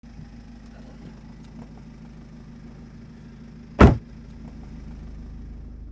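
Steady low hum inside a car, and a car door shutting once with a loud thud just before four seconds in.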